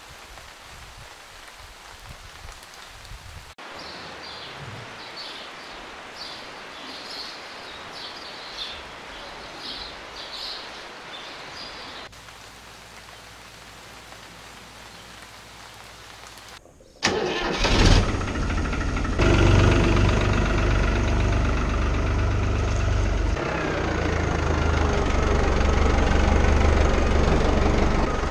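A steady outdoor hiss, then about two-thirds of the way in a Deutz-Fahr Agroplus tractor's diesel engine starts up and runs steadily.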